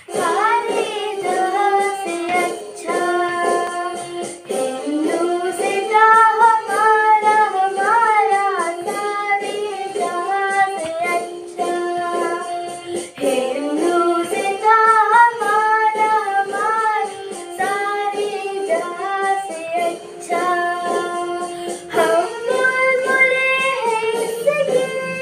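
A young girl singing solo: one voice carrying a slow melody of held notes that waver in pitch, with short breaks between phrases.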